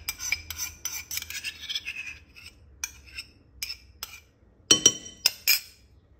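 Metal spoon scraping thick jam out of a small ceramic bowl, with a run of short scrapes and taps. About five seconds in come a few loud, sharp clinks with a brief ring, of spoon and ceramic bowl knocking together and being set down.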